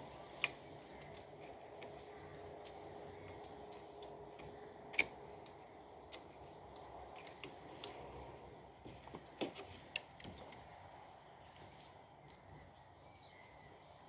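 Scattered light clicks and taps of plastic robot-vacuum parts being handled, irregular and a few seconds apart, with the sharpest about half a second and five seconds in.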